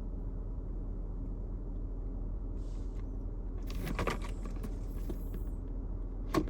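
Metal hand tools being handled: a few clinks and rattles about four seconds in and again near the end, over a steady low hum.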